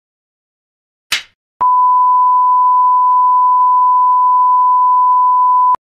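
A clapperboard clap about a second in, then a steady single-pitch test-tone beep held for about four seconds that cuts off suddenly with a click.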